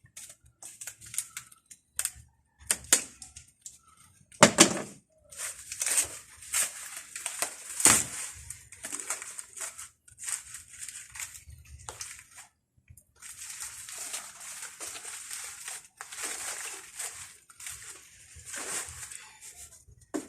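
Dried thatch leaves crackling and rustling in irregular bursts as they are handled and woven into the roof, with a few sharper snaps.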